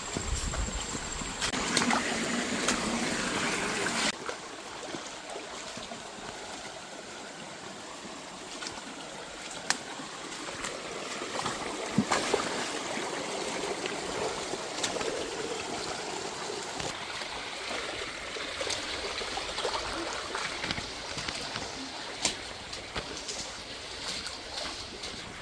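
Water trickling and gurgling, with scattered sharp drips or splashes. The sound changes abruptly about four seconds in, to a quieter, thinner trickle.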